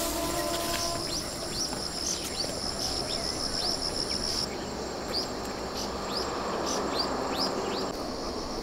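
Field insects calling: a steady high trill that stops about halfway through, with short high chirps repeating about twice a second, over a soft rustling of plants.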